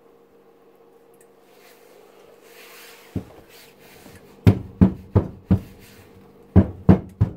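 Loaf mold full of hot process soap lifted and banged down on a cloth-covered table to settle the soap and knock out air pockets. There is a single thump a little past three seconds in, then a quick run of four thumps and, near the end, a run of three more.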